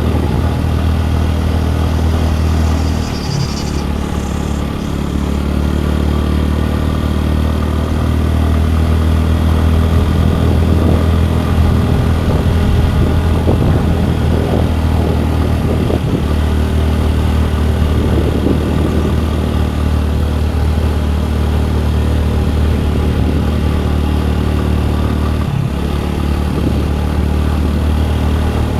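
Scooter engine running steadily while riding, a low even hum with road and wind noise. It dips briefly a few seconds in, midway and near the end as the throttle changes.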